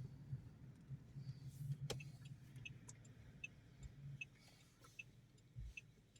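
Car's turn-signal indicator ticking steadily, a little faster than once a second, starting about halfway through, over a faint low engine hum in the car cabin.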